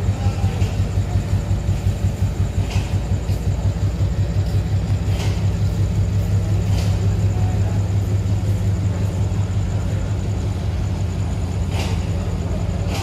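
Sri Lanka Railways Class M2C diesel locomotive's engine running with a deep, steady hum, throbbing in quick pulses over the first few seconds and then evening out. A few faint short clicks sound over it.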